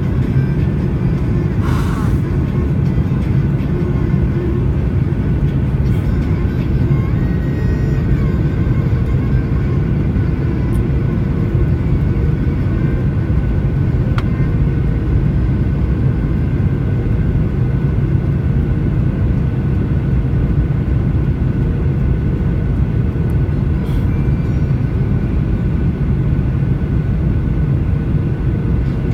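Steady drone of a Boeing 737's jet engines and rushing air heard from inside the cabin during the descent to land: a heavy low rumble with a faint steady whine on top.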